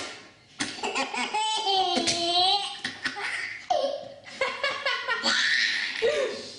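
A baby laughing hard in repeated high-pitched belly-laugh bursts, with one long drawn-out squeal about two seconds in. It is the laughter that sneezing sets off in this baby.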